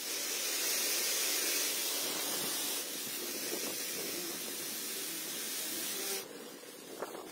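Homemade eight-wheeled RC truck driving on concrete: a steady hissing whir from its drive motors and tyres. It is louder for the first few seconds and drops away about six seconds in.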